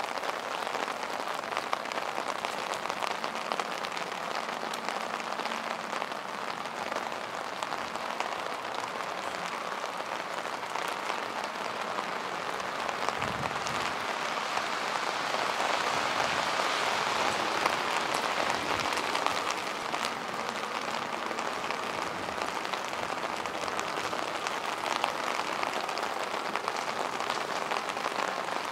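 Steady heavy rain falling on a city street, a dense patter of drops that grows somewhat heavier around the middle.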